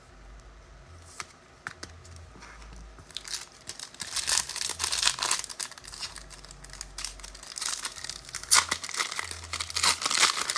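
Trading-card pack wrappers being torn open and crinkled by hand, starting about three seconds in after a few light clicks.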